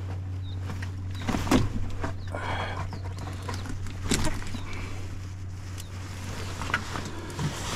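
Fishing pliers working a lure out of a fish's jaw in a landing net: a few sharp clicks and knocks of metal and handling, about a second and a half, four and nearly seven seconds in, over a low steady hum.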